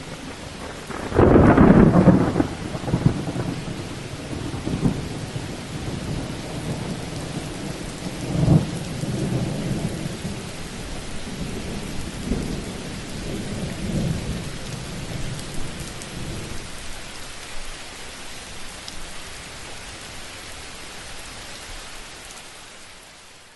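Thunderstorm: a loud thunderclap about a second in, followed by rolling rumbles of thunder over steady rain. The sound fades out near the end.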